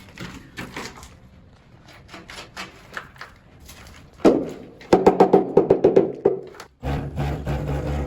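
Background music over scattered knocks and taps, with a loud run of rhythmic pitched strokes about halfway through, followed near the end by a steady low hum.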